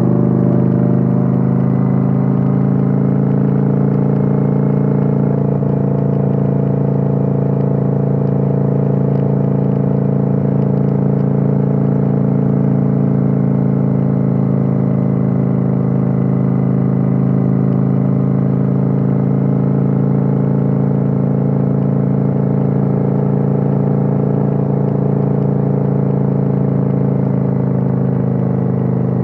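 Kawasaki Vulcan 900's V-twin engine running steadily at cruising speed, recorded on board. Its pitch drops slightly near the end as the throttle eases.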